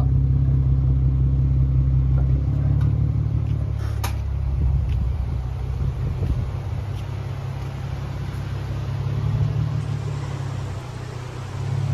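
Car engine running with a low, steady rumble that shifts in level a couple of times, with a sharp click about four seconds in.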